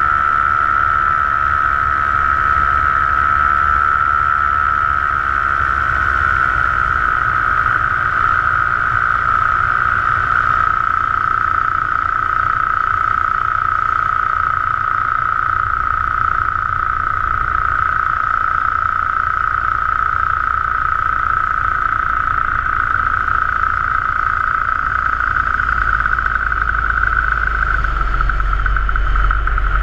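Paramotor engine and propeller running steadily at cruise in flight, a constant droning note that eases slightly lower in pitch after a few seconds. A low rumble underneath grows stronger near the end.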